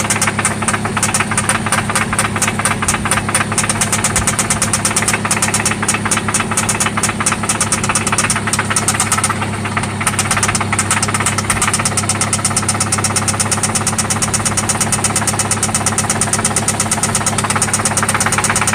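1995 Toyota Celica ST's 1.8-litre four-cylinder engine running with a loud, fast, regular knock.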